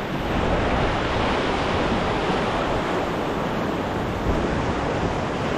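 Sea swell breaking and washing over a rocky shore: a steady rush of surf.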